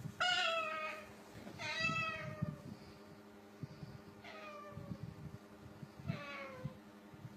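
Four cat-like meows, each falling in pitch, the first two loudest: a sulphur-crested cockatoo mimicking a cat's meow in an exchange with cats.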